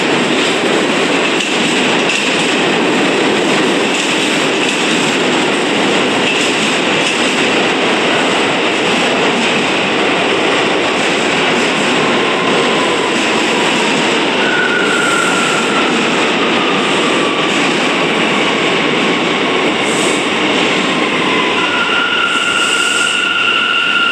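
New York City subway A train pulling into the station and slowing to a stop: a loud, steady rumble of steel wheels on the rails. From about halfway through, high whining tones join it, sliding slowly down in pitch as the train brakes.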